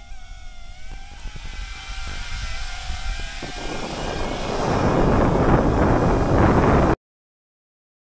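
DJI Avata 2 FPV drone's propellers and motors whining, the pitch wavering up and down as the throttle changes, over a low rumble of wind on the microphone. A louder rushing noise builds through the second half and cuts off suddenly about seven seconds in.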